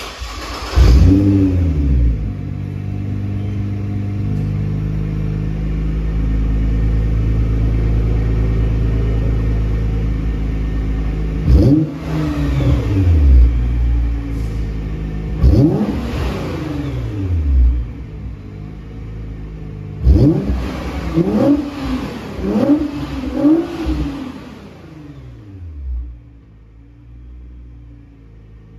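2008 Nissan GT-R R35's twin-turbo 3.8-litre V6 (VR38DETT), running with its first catalytic converters replaced by straight pipes and the stock muffler, revved while parked. A quick rev comes about a second in, then the engine holds a steady higher speed for several seconds. Single blips follow, then a cluster of short quick blips, and it drops back to a low idle near the end.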